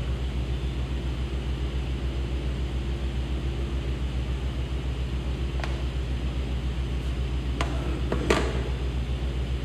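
A steady, low machine hum with a slight pulsing throughout, and three sharp clicks or knocks in the second half, the last and loudest about eight seconds in.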